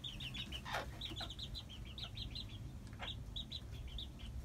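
Serama bantam chickens in a coop giving a rapid string of short, high peeps, several a second, with a couple of brief knocks in between.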